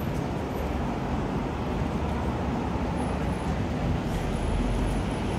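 Road traffic at a busy city junction: cars and vans passing in a steady wash of engine and tyre noise, with a deeper rumble building about four seconds in.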